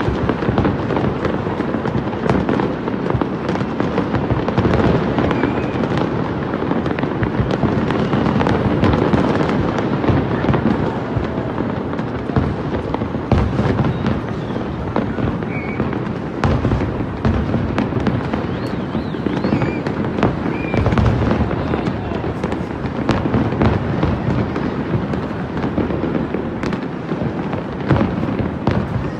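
A fireworks display going off thick and fast: many overlapping bangs and crackles that run on without a break.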